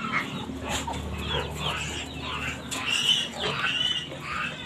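Piglets squealing: a rapid, overlapping run of short high-pitched calls from several young pigs.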